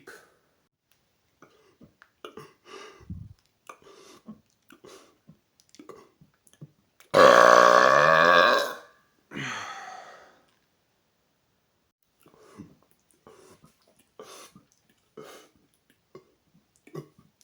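A man's loud, deep-pitched burp lasting about a second and a half, about seven seconds in, followed by a shorter, fainter one, brought up by the gas from the Coke Zero he is drinking. Faint small clicks come before and after.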